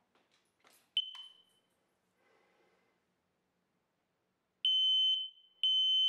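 Kidde combination smoke and carbon monoxide alarm: after a few faint handling clicks it gives one short high chirp about a second in. Near the end it sounds loud, high-pitched beeps about once a second, its alarm being tested with fresh batteries in.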